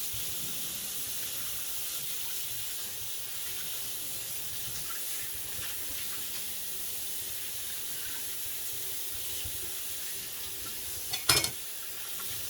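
Tap water running steadily into a sink, with one brief loud knock near the end.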